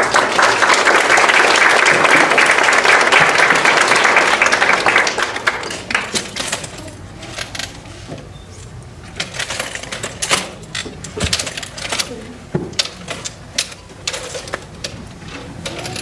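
Audience applauding for a graduate whose name has just been read, fading out after about five seconds. After that come scattered sharp clicks and knocks.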